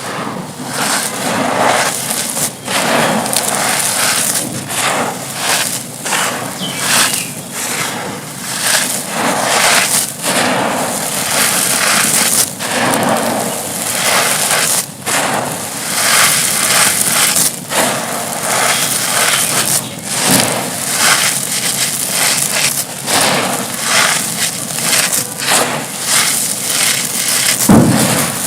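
Dry concrete chunks being crumbled, a steady run of gritty crunching and crackling, with one louder crack near the end.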